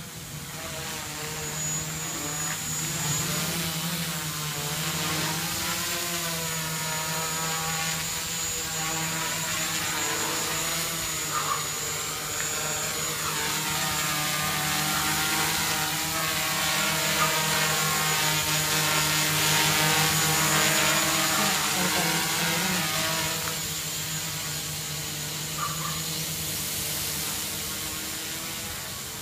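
Homemade 3D-printed quadcopter's motors and propellers buzzing in flight, the pitch wavering up and down as the rotor speeds change. It grows louder toward the middle and fades somewhat near the end.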